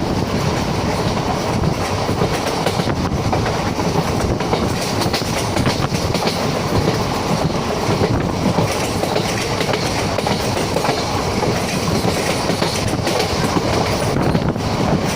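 Moving express passenger train heard from on board: a steady running noise of wheels rolling on the rails.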